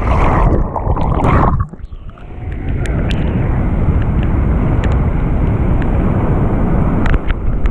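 Whitewater rushing and splashing around a GoPro on a bodyboard, with wind buffeting the microphone. There is a loud churning splash in the first second and a half, a short dip, then a steady low rush broken by a few sharp ticks.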